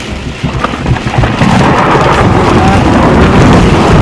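Heavy rain mixed with hail beating on a car's roof and windshield, heard from inside the car; it swells about a second in to a loud, steady noise.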